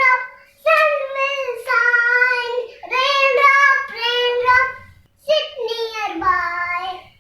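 A child singing a rain-drop rhyme without accompaniment, in three high-pitched sung phrases with short breaks between them.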